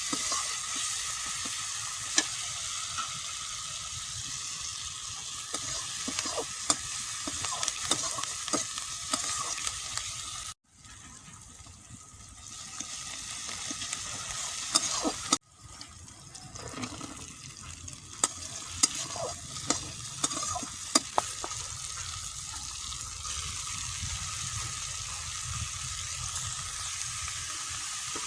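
Food frying and sizzling in a pan while it is stirred, the spatula scraping and clicking against the pan. The sound cuts out abruptly about ten seconds in, comes back quieter, cuts out again about five seconds later, and then builds back to a steady sizzle with stirring clicks.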